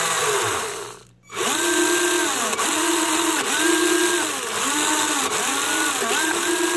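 Four 1000 RPM gearmotors of a four-wheel-drive beetleweight combat robot whining as they are driven by radio control. After a brief lull about a second in, they spin up, hold and wind down again in repeated short pulses, roughly one a second.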